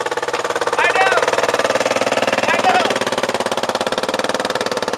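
Four-wheeler (ATV) engine idling steadily with a fast, even pulse, with short bursts of voices over it about a second in and again midway.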